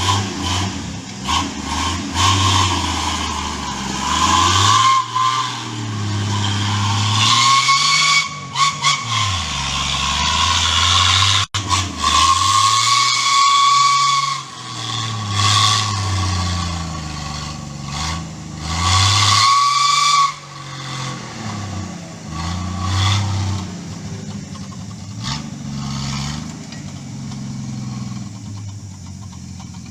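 Turbocharged Land Cruiser FJ engine revving up and down repeatedly under load, with a high turbo whistle that swells with each burst of revs. It settles to a lower, steadier running in the last third.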